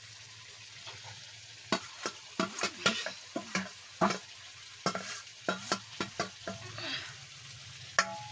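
Food frying and sizzling in a pan while a metal spoon stirs it, scraping and knocking against the pan in irregular strokes from about two seconds in.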